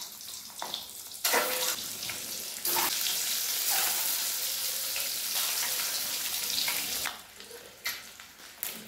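Boiled eggs coated in salt and turmeric sizzling as they fry in hot oil in an aluminium kadai. The sizzle steps up louder twice in the first three seconds as more eggs go in, holds steady, then falls off about seven seconds in, with a few light clicks near the end.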